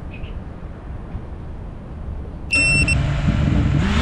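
Low steady rumble, then about two and a half seconds in an FPV racing quadcopter arms: a short high beep as its motors start spinning at idle, their whine rising in pitch near the end as the throttle comes up for takeoff.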